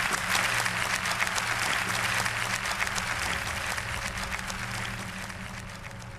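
Large audience applauding the end of a lecture: dense, continuous clapping that gradually fades over the last couple of seconds.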